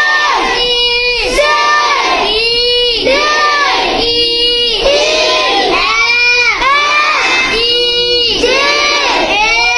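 Three young boys reading aloud from their books together in a loud sing-song chant, their voices in unison in drawn-out phrases of about a second each.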